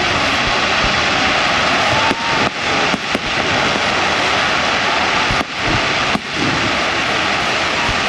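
Fireworks crackling continuously in a dense, loud hiss, with a few brief dips.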